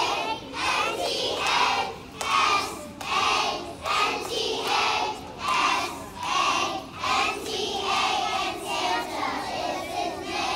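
A kindergarten choir of young children singing together in unison, in strong, even syllables about one and a half a second.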